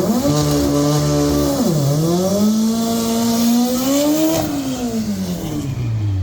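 Turbocharged 2.3-litre Volvo redblock four-cylinder in a drag-racing car accelerating hard. The engine note climbs, drops sharply at a gear change about two seconds in, climbs again, then falls away near the end.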